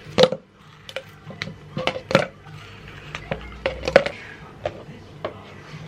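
Irregular series of sharp knocks and clinks of hard objects being handled, about a dozen in all, the loudest near the start, about two seconds in and about four seconds in.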